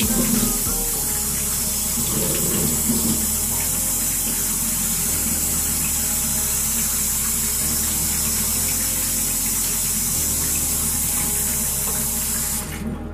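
Water from a faucet pouring steadily into a utility sink, shut off near the end.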